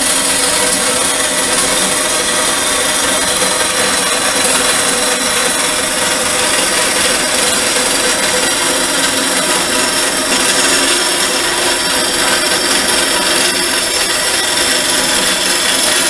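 A 12-inch Craftsman band saw, converted to vertical, cutting through 3/16-inch steel plate: a steady, unbroken rasp of the blade through metal with a high whine over it.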